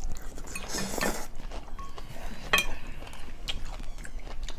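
Eating at a table: cutlery clinking against a plate in a few sharp separate clicks, with a short rustling, scraping noise about a second in.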